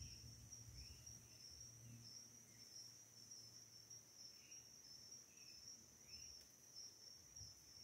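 Faint insect chorus in forest: a steady, high-pitched, pulsing trill, with a few short chirps scattered through it.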